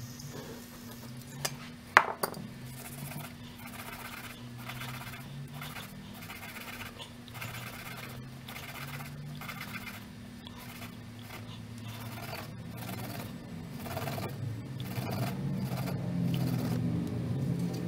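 A small brass water-pump piston rubbed back and forth on a green abrasive scouring pad, making rhythmic scraping strokes about two a second, after a couple of sharp clicks about two seconds in. The part is being smoothed so it slides up and down without binding.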